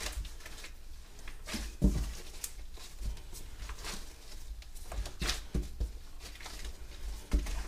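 Homemade play dough being kneaded by gloved hands on a countertop: irregular soft squishes and pats, with a few dull thumps as the dough is pressed down.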